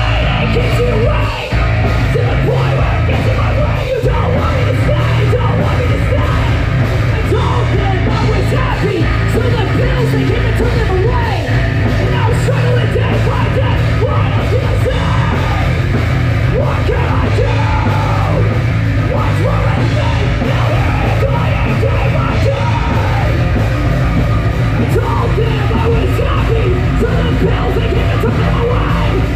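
Loud heavy rock music with yelled vocals over it, played without a break apart from a brief dip about a second and a half in.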